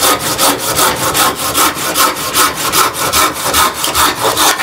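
A hand-filed 360 mm Silky Sugoi pull saw cutting through a log in quick, even strokes, about two to three a second. The freshly sharpened teeth dig in very aggressively, which the owner takes as a sign of uneven teeth from a rough sharpening job.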